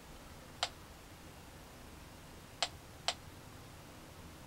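Sper Scientific 840026 Geiger counter clicking three times at random intervals, the last two about half a second apart. These are individual counts at roughly background rate: the canned fish shows no discernible radioactivity above the room's air.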